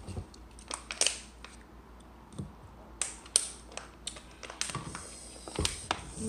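Eating noises close to the microphone: scattered crunching and small clicks of chewing and of a spoon against a plastic bowl, with a knock on the table near the end.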